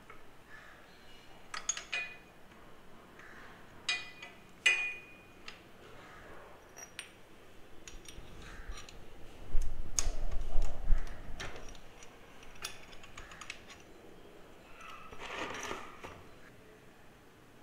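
Scattered metallic clinks and taps of hand tools, a size 17 socket being worked on a motorcycle engine's oil drain cap bolt, with a louder low rumbling stretch about ten seconds in and a brief swish near the end.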